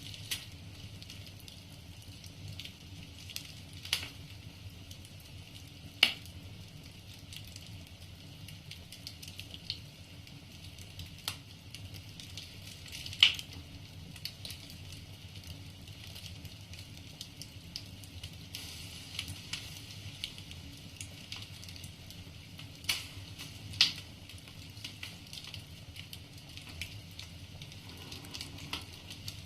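Wood fire crackling in a fireplace: scattered sharp pops and snaps from the burning logs over a steady low rumble and hiss. The loudest pops come about six and thirteen seconds in.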